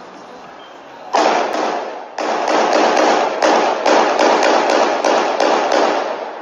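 A rapid run of loud, sharp bangs, about three to four a second, each ringing out. It starts suddenly about a second in and fades away near the end.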